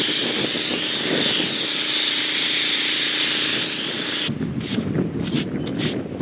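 Sandblaster nozzle blasting abrasive against a sign: a loud, steady hiss of air and grit that cuts off suddenly about four seconds in. It is followed by several short scraping strokes as the rubber stencil mask is worked off the blasted sign.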